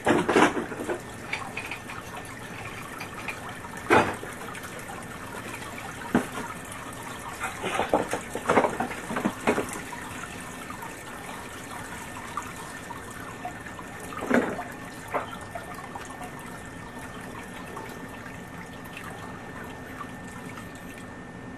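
Water trickling and splashing in a sump pit while a submersible sump pump runs, drawing the pit down as groundwater runs in through the holes in the pit's side. A steady faint hum sits under the running water, broken by several sudden louder splashes or gurgles, the loudest right at the start and about four seconds in.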